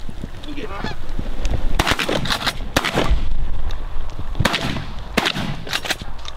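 Canada goose honking: clusters of short, harsh honks in quick succession, over a low wind rumble on the microphone.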